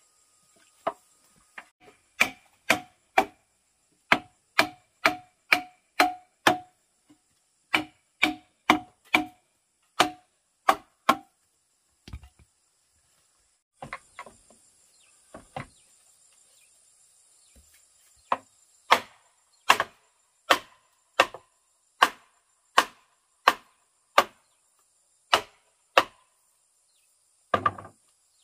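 Repeated sharp blows of a tool on bamboo or wood, about two a second, in two runs with a pause in the middle and a last double hit near the end. Each blow rings briefly. A steady high insect drone sits behind.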